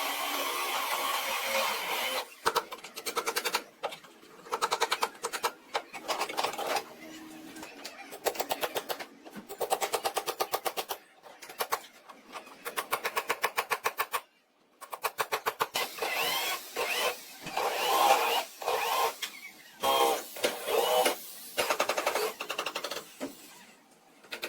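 A power tool rattling in short bursts of fast, even strikes, starting and stopping every second or two.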